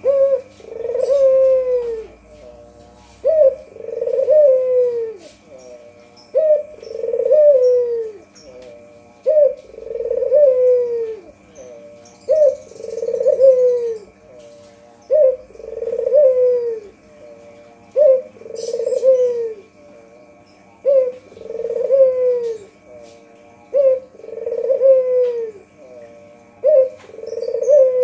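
White puter (domestic ringneck dove) cooing over and over. Each call is a short note followed by a longer, falling coo, repeated about every three seconds.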